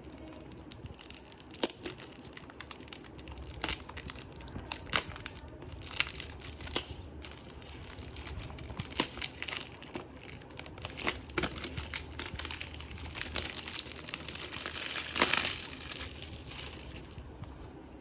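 Perfume packaging opened by hand: crinkling, rustling and tearing of wrapping, with many sharp clicks and taps. The loudest rustle comes near the end.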